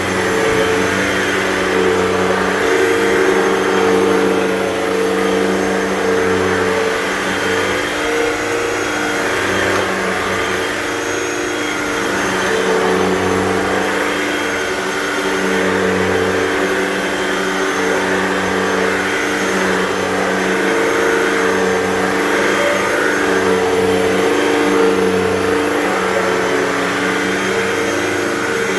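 Hoover Total Home Pet upright vacuum running with its brush bar on carpet, a steady motor hum whose tone and level shift a little every few seconds as it is pushed back and forth.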